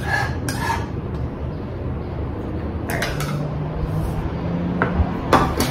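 A metal spoon scraping and clinking against a small bowl as beaten egg is scraped out of it. There are a few short scrapes, in pairs near the start, about three seconds in and near the end, over a steady low background rumble.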